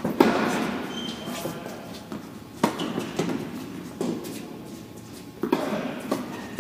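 Tennis ball struck by rackets in a rally, a sharp hit about every one and a half seconds, each hit echoing in a large indoor tennis hall.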